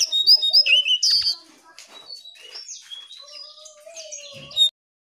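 Jongkangan songbird singing: a fast run of high chirps and trills for about the first second, then quieter varied notes and a lower whistle. It cuts off suddenly near the end. This is a lure recording meant to set caged jongkangan singing.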